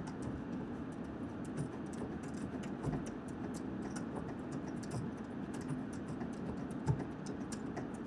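Light, irregular clicking of a metal tonneau cover rail clamp and its bolt being turned finger tight by hand, with two soft knocks about three and seven seconds in.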